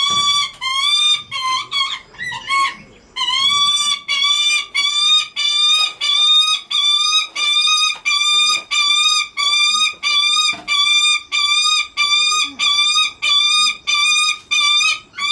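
Lanner falcon calling over and over, about two calls a second, each call rising slightly in pitch. There is a short break about three seconds in, then a steady run. These are begging calls to its keeper.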